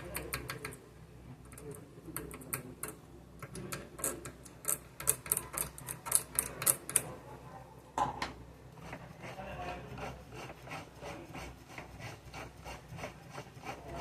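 Elgin domestic sewing machine running, its mechanism ticking in a rapid, even rhythm, with a sharp click about eight seconds in and a softer steady run after it. It turns freely now that a wad of thread jammed in the bobbin case has been cleared.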